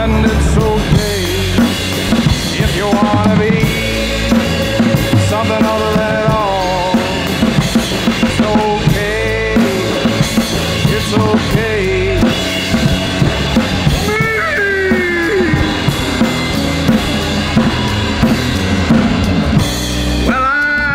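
Instrumental break of a rock song: a drum kit with kick and snare keeps a steady beat under bass, while a lead line bends up and down in pitch above it.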